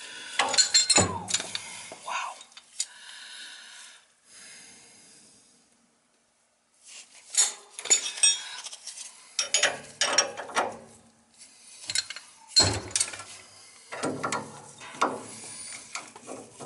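Steel wrenches clinking and scraping against the iron fittings at an oil tank's outlet, in irregular clusters of sharp metallic knocks, as a stuck fitting is worked loose.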